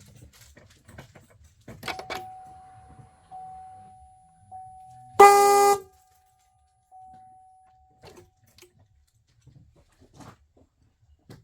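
A pickup truck horn gives one short blast about five seconds in, lasting about half a second, as newly installed air horns are tested. A faint steady whine runs before and after it. The test has not worked as intended, and the owner thinks he has the wires wrong.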